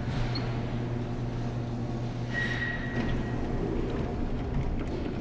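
Arcade background noise: a steady low machine hum, with a short high electronic tone about two seconds in.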